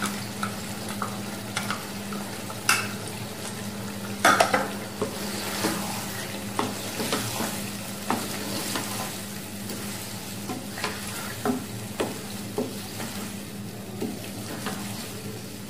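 Wooden spatula stirring chicken pieces and yogurt in a non-stick kadai, with irregular scrapes and taps against the pan over a steady sizzle. A low steady hum runs underneath.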